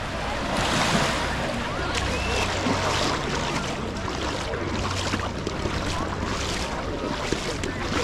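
Beach ambience: surf washing onto the shore in gentle swells, with indistinct voices of people on the beach.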